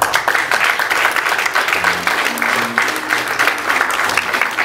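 Audience applauding, dense clapping throughout, with low notes of background music coming in underneath about two seconds in.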